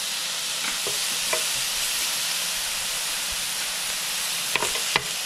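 Pork belly and marinated beef sizzling on a tabletop grill pan with a steady hiss, broken by a few sharp clicks about a second in and twice near the end.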